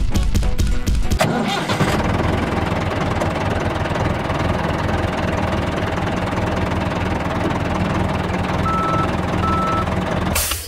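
Tractor engine sound effect: a rapid rhythmic chugging for about the first second as the engine starts, then the engine running steadily, cutting off just before the end.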